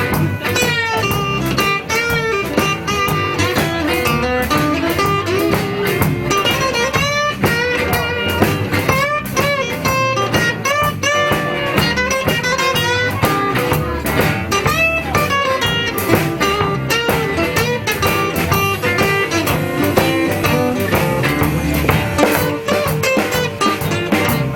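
Live blues band playing an instrumental break: electric guitar solo with bent notes over bass and drum kit.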